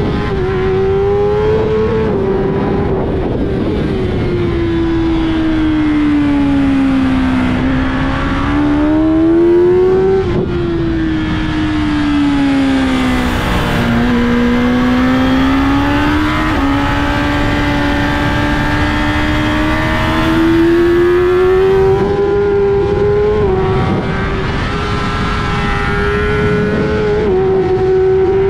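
Kawasaki ZX-10R inline-four engine at full racing pace, its pitch rising under throttle and sinking as the bike slows for corners, twice over, with short steps in pitch at the gear changes.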